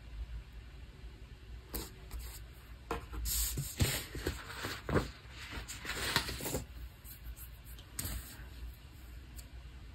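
Paper and sticker sheets rustling and crinkling while planner stickers are handled and pressed down: a run of short scrapes from about two to six and a half seconds in, and one more near eight seconds.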